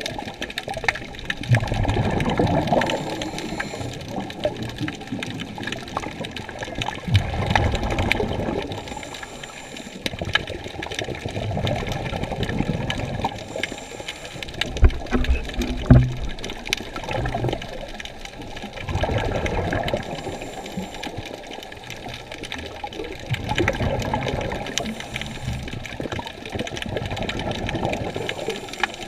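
Water sloshing and surging around a camera filmed underwater, swelling and fading every few seconds, with a couple of knocks about halfway through.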